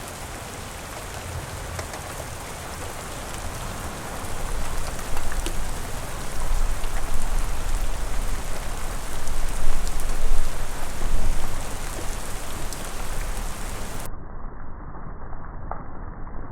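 Steady rain falling, with scattered individual drops ticking. It grows louder about four seconds in, with a deep rumble underneath, and near the end it turns suddenly muffled as the high end cuts off.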